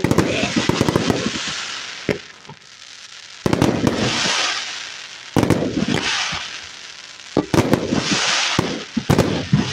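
Aerial fireworks going off in volleys, a new cluster of sharp bangs about every two seconds, each followed by a spray of crackling.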